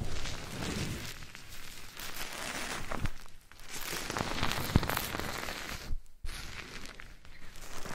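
Close-miked ASMR rustling and crackling right against the microphone, swelling and fading in waves with scattered small clicks and two brief pauses.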